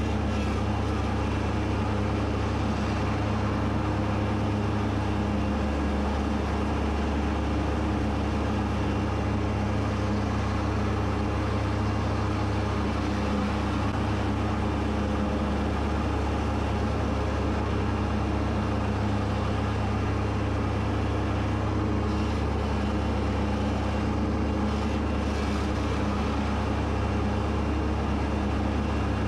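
Kubota B2601 compact tractor's three-cylinder diesel engine running steadily under load while mowing grass, with a constant low hum.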